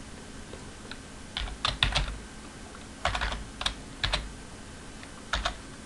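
Computer keyboard typing: a few short runs of keystrokes with pauses between them.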